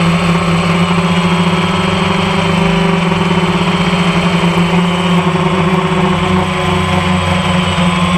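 Electric motors and propellers of a camera-carrying RC drone, picked up by the onboard microphone: a steady, loud hum with a fainter higher whine that shifts slightly in pitch as it flies.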